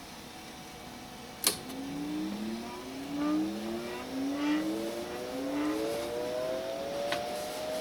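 A toggle switch clicks, then the IMSAI 8080's cooling fan spins up, its whine rising steadily in pitch before settling to a steady hum. Another small click comes near the end.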